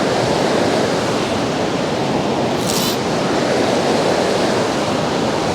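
Steady rush of a swollen mountain river running through rapids in high water. A brief high swish comes in just under three seconds in.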